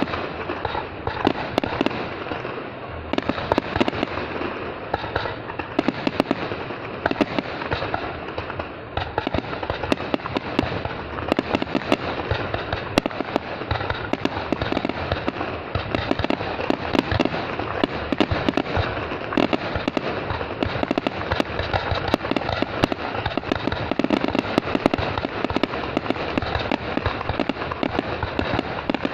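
Fireworks going off in a continuous dense barrage: many overlapping bangs and crackles every second, with no let-up.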